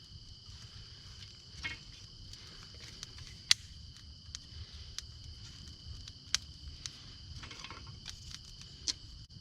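Steady high trilling of insects, with a handful of sharp snaps and clicks from small sticks or the young fire, the loudest about three and a half seconds in.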